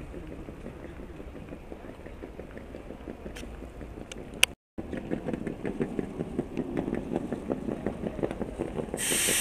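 Railway platform ambience: a steady low rumble with a couple of sharp clicks, cut by a brief dropout, then a fast rattle as a wheeled suitcase rolls over the paving tiles close by. A loud hiss comes in near the end.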